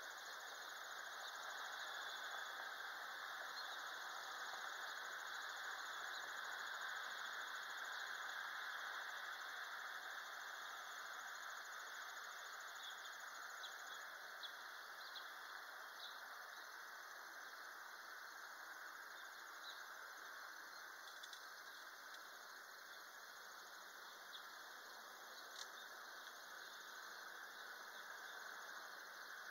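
Faint, steady outdoor ambience: an even hiss with a few faint, short high chirps or ticks, mostly around the middle and once near the end.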